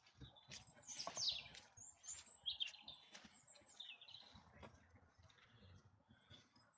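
Small birds chirping faintly: a handful of short, high calls, some sweeping downward, mostly in the first few seconds.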